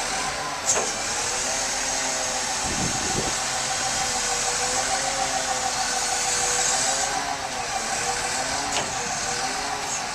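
Caterpillar 12M VHP motor grader running: a steady whine that wavers slightly in pitch, over a loud hiss.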